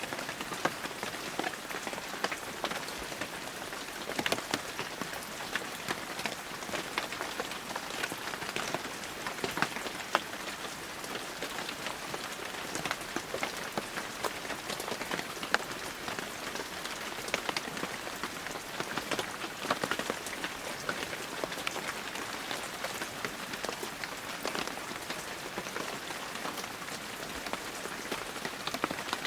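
Heavy rain falling steadily, a dense hiss with many individual drops pattering and spattering on surfaces.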